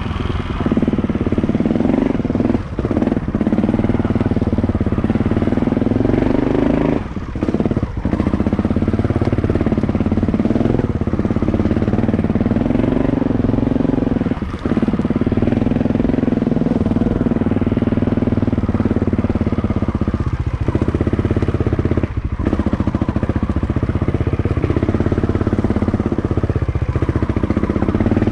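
Honda Montesa Cota 4RT 260 cc four-stroke single-cylinder trials bike engine running under way at low to middling revs. The engine speed rises and falls with the throttle, and it dips briefly several times where the throttle is closed for a moment.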